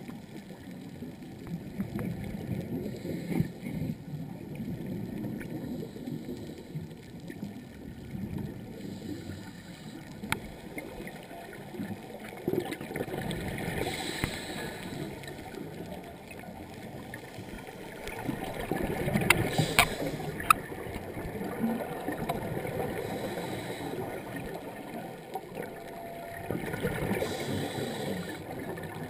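Muffled underwater rumble and water movement heard through a GoPro's waterproof housing, with a few sharp clicks and a louder rumbling stretch about two-thirds of the way in.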